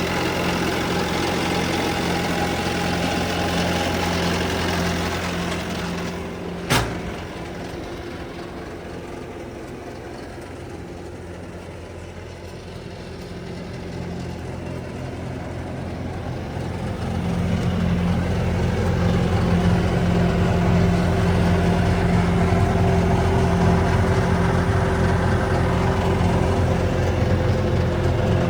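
Diesel engine of a Bobcat S530 skid steer loader running steadily, with a single sharp click about a quarter of the way in; the engine then grows quieter, and it is louder again from a little past halfway.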